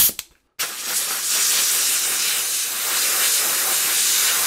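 Air blow gun on a compressor's hose blasting compressed air: a loud, steady hiss that starts about half a second in, just after a sharp click.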